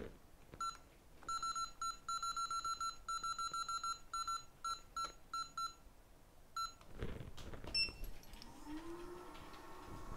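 Rework station's control panel beeping in rapid runs of short, same-pitched beeps as its buttons are pressed to set it up. Near the end, a rising whine begins as the station starts up.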